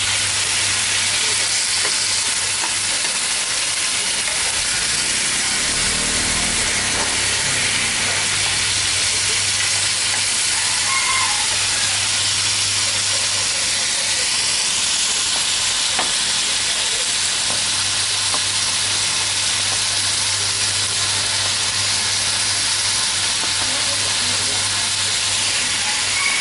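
Chicken pieces and julienned ginger sizzling steadily in a frying pan in caramel sauce, searing until the meat firms up. A low steady hum runs underneath.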